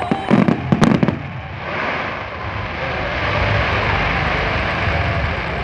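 Fireworks display: several sharp bangs of bursting shells in the first second or so, then a steady hiss of noise as the bursts fade.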